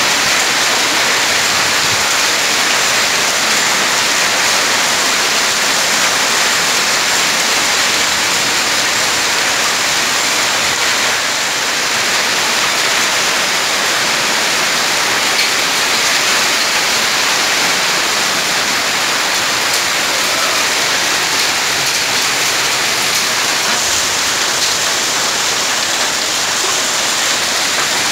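Heavy rain mixed with hail falling steadily onto a wet tiled floor: a dense, even hiss with no let-up.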